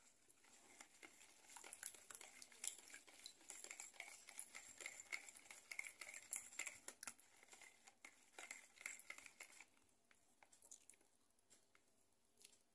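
Faint, rapid ticking and sloshing of a whisk beating eggs, oil and milk in a bowl, stopping about nine to ten seconds in.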